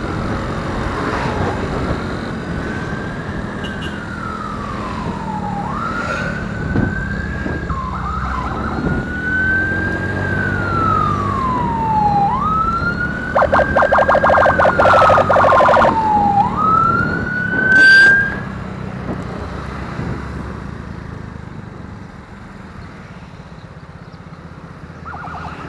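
Emergency siren wailing, its pitch sweeping slowly up and down about once every five seconds, with a fast pulsing buzz for a few seconds in the middle, over motorcycle engine and road noise. The siren stops a few seconds past the middle, and the engine and road noise then drop lower.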